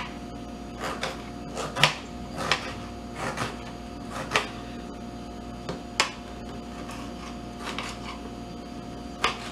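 Kitchen knife slicing a tomato into thin strips on a cutting board, with irregular taps of the blade striking the board, most in the first half and a sharper one about six seconds in, over a faint steady hum.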